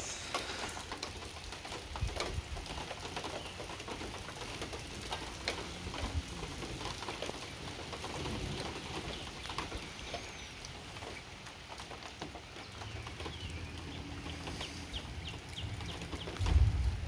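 Rain falling, with many single drops ticking on hard surfaces around; a low thump near the end.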